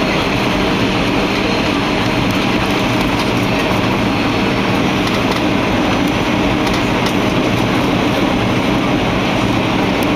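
Steady cabin noise of a Boeing 737-800 on approach: its CFM56 turbofans and rushing air heard from inside the passenger cabin, even and unchanging.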